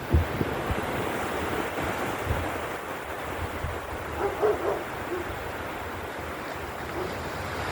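Ocean surf washing onto the beach in a steady rush, with wind gusting on the microphone.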